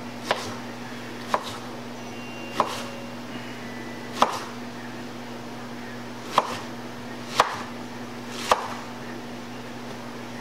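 Kitchen knife cutting an onion on a wooden cutting board: seven single chops, about a second apart.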